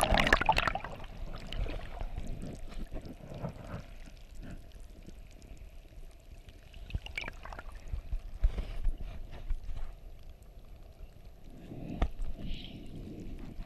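Water splashing and sloshing, loudest right at the start, with scattered knocks and clicks through the rest.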